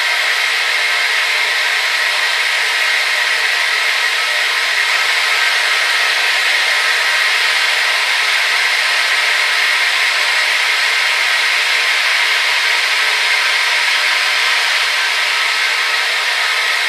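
Hair dryer running continuously: a steady, unchanging rush of blown air and motor whine, strongest in a hissing band around the upper mids, with almost nothing in the bass.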